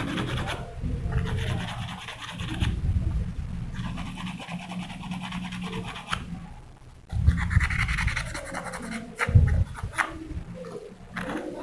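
Fine sandpaper rubbed back and forth over a small glue-hardened, thread-wound spur tip to smooth it, an irregular scratching with a short pause about six seconds in and a few sharp handling clicks.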